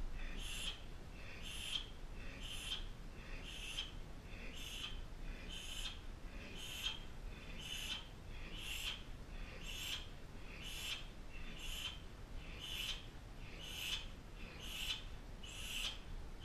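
A man's short, sharp hissing exhalations, about one a second, the breath forced out with each repeated Muay Thai knee raise or kick.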